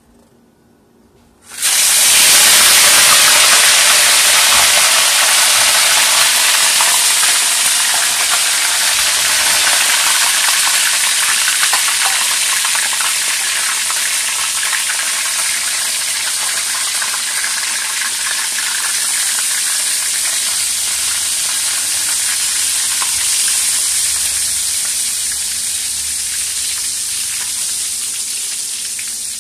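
Hot oil in a steel wok sizzling as food goes in to deep-fry, with flour-dredged sardines frying in it by the end. The sizzle starts suddenly about a second and a half in, loud at first, then slowly eases off.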